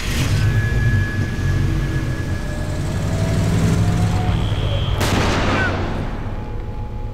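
A vehicle engine runs with a heavy low rumble. A sudden loud noise comes right at the start, and another short burst about five seconds in.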